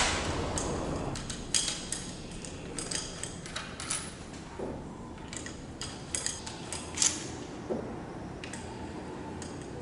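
Metal hand tools clinking and tapping: a ratchet handle and a spanner being handled and set against the bearing-cap bolts of a rear differential. The result is scattered, irregular sharp metallic clicks, with the loudest right at the start.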